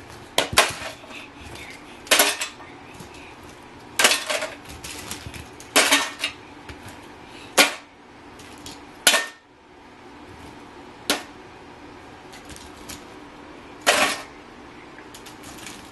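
Mini toy trains being dropped one by one into a toy dump truck's bed, a sharp clatter about every two seconds, fewer near the end.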